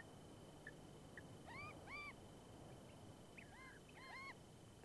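Faint bird calls, short arched calls in quick pairs, about a second and a half in and again near four seconds in. A faint steady high whine runs underneath.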